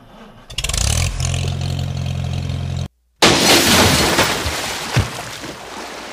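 A steady engine-like drone runs for about two seconds. After a brief cut, a red toy tractor hits pond water with a loud splash, and the splashing fades with one more sharp slap about two seconds later.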